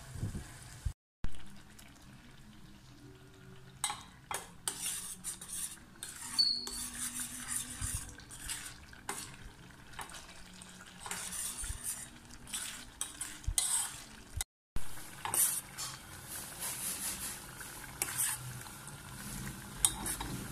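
A spoon stirring thick chili paste in a stainless steel saucepan, scraping and clinking against the pot in quick irregular strokes, over the faint sizzle of the paste cooking.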